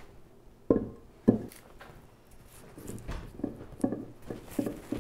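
Two sharp knocks of a heavy pedestal pot set on a stone countertop, then a run of soft rustles and light taps as hands work potting soil and press amaryllis bulbs into it.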